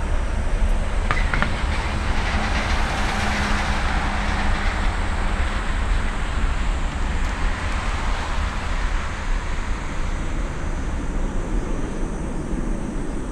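Airbus A330's twin Rolls-Royce Trent 700 jet engines at takeoff thrust during the takeoff roll: a loud, steady roar with a deep rumble, easing slightly as the aircraft accelerates away.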